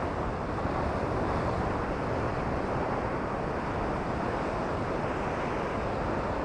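Big waves breaking on a rocky shoreline: a steady rush of surf, with wind on the microphone.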